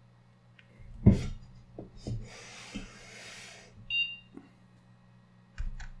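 A PC booting, over a steady low hum: a loud knock about a second in, a few smaller knocks and a short rustle, then one short, high electronic beep just before four seconds in.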